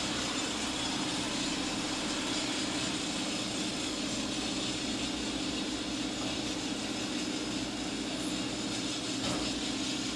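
Steady background drone: a constant low hum under an even hiss, unchanging throughout.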